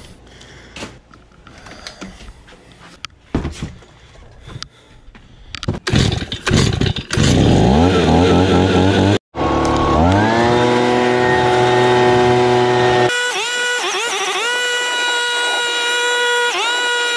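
Handheld two-stroke gas leaf blower pull-started about six seconds in, catching and revving up, then running at full speed, with the throttle repeatedly eased off and opened again near the end. Before it, a few light plastic clicks and rustles from a water bottle being handled.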